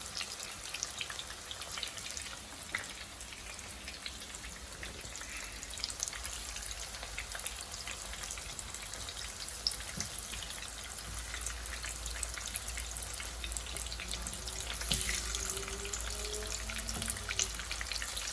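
Marinated chicken 65 pieces deep-frying in hot oil: a steady sizzle peppered with many small crackles and pops.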